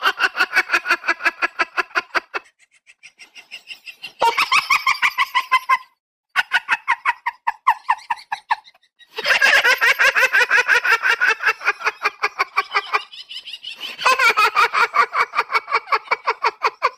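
Rapid, high-pitched cackling in long runs of quick, even pulses, coming in several phrases with short breaks between them.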